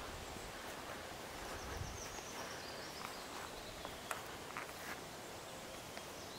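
Faint outdoor ambience: a steady hiss with a couple of soft low thumps near the start. A thin high whistle falls in pitch about two seconds in, followed by a few short high chirps.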